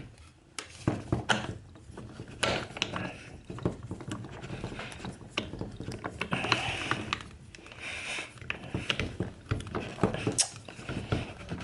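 Irregular metallic clicks, knocks and short scrapes of a socket being worked on and off a cordless impact wrench's 1/2-inch detent anvil.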